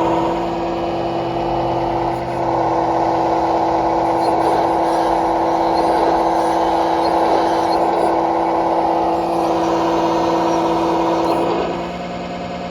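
3D-printed RC model excavator working: a steady engine-like hum, with a louder whine joining about two seconds in and falling away near the end.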